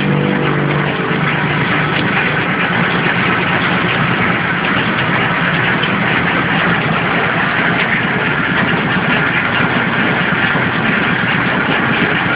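A WM-289 horizontal flow-wrap packing machine for bread running steadily, giving a continuous dense mechanical noise.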